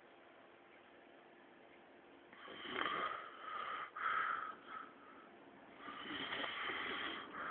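A man snoring in his sleep. After about two seconds of quiet comes a snore lasting about a second and a half, then two short ones, and another long snore near the end.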